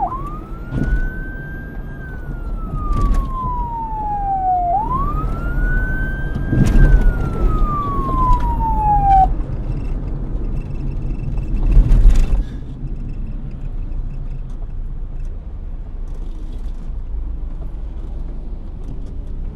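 Police car siren in its slow wail: two long sweeps, each climbing quickly and then falling slowly, before it cuts off suddenly about nine seconds in. A low rumble carries on underneath and afterwards, swelling loudly for a moment around twelve seconds.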